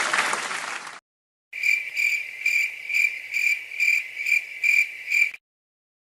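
Applause fading out in the first second, then after a short silence a cricket chirping in an even pulse, about ten chirps at two to three a second, stopping suddenly.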